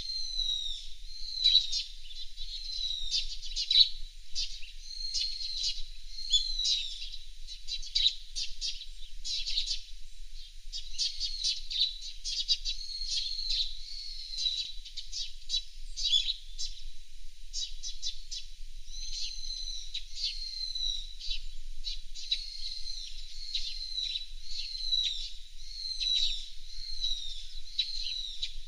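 Small songbirds calling steadily: a continuous run of short, high, downward-sliding chirps, about one or two a second, mixed with quick ticking trills.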